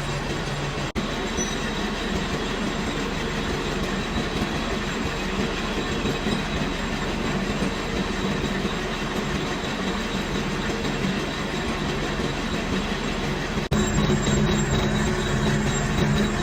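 Metal lathe running with the cutting tool turning a metal pulley: a steady, dense machining noise over a constant hum. It breaks off for an instant about a second in and again near the end, and is louder after the second break.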